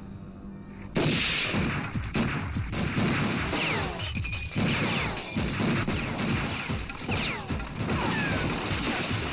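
Sustained film gunfire that bursts in about a second in: rapid shots and bullets smashing into a brick wall, with crashing debris and a few short whines falling in pitch.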